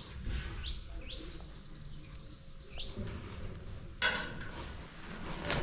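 Birds chirping, a few short rising calls in the first three seconds, over a low rumble. A sudden sharp knock about four seconds in.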